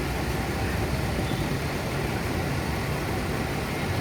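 Diesel engine of a tour bus running steadily as the bus pulls in slowly.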